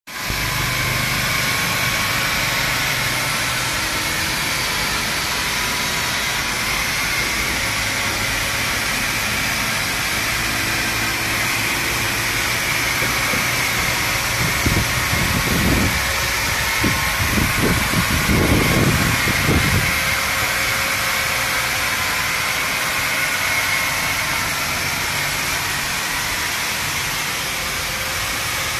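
A machine running steadily with a hiss and a faint whine, like an engine idling; about halfway through, a few seconds of low rumbling bumps rise over it.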